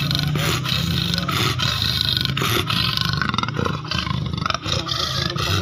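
Leopard snarling and growling without a break, a rough, loud sound that dips briefly about four and a half seconds in.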